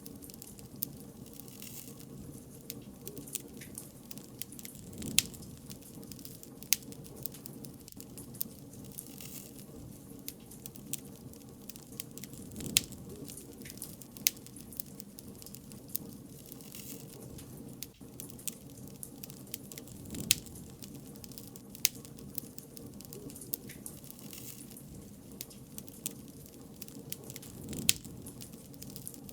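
Wood bonfire crackling: irregular sharp pops and snaps over a low, steady rush of burning, with a few louder pops every several seconds.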